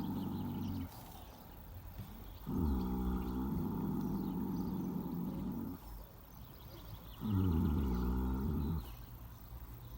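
Pony snoring in its sleep: low snores repeating every few seconds, one tailing off just under a second in, then a long one of about three seconds and a shorter one of about a second and a half, each starting with a dip in pitch.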